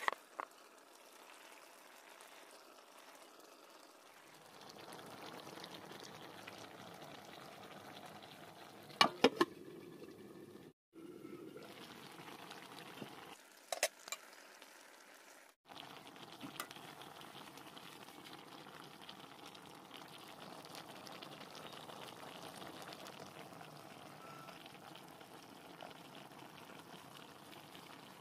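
Fish curry simmering and bubbling faintly in a metal wok, with a few sharp clinks of a metal ladle against the pan: once at the start, a quick cluster about nine seconds in, and again about five seconds later.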